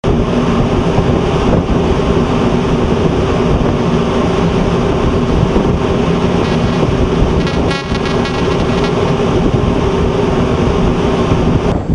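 Steady loud rumble with a low, even hum: machinery and wind noise aboard a ship under way at sea.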